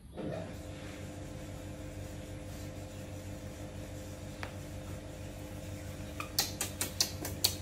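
A steady mechanical hum with a few held tones, like a small motor or fan running. From about six seconds in, a quick run of sharp clicks or taps.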